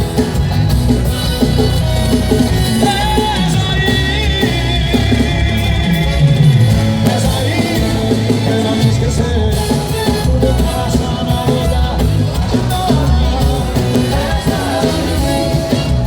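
Live forró band playing loudly, with a sung vocal line over the instruments.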